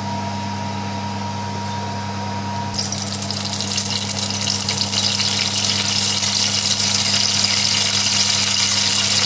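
Whole spices (bay leaves, cinnamon stick, cardamom pods) hitting hot vegetable oil start sizzling about three seconds in, and the crackle grows a little louder. A steady low hum runs underneath.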